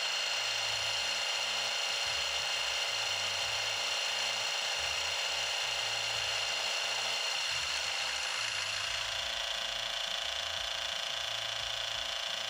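Milling machine spindle driving a carbide end mill through a light cleanup cut on steel. It is a steady, even machining sound with a high-pitched whine.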